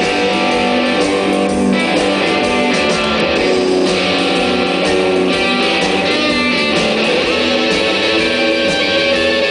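Live rock band playing loudly, with electric guitars holding sustained chords, heard from the audience.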